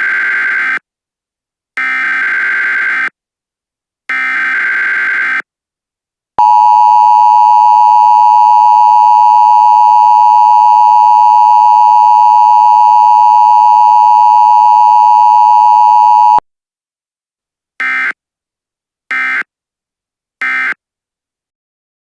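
Emergency Alert System tones: three digital header bursts, each a warbling data screech lasting just over a second, then the loud, steady two-tone EAS attention signal held for about ten seconds and cutting off abruptly, then three short end-of-message bursts.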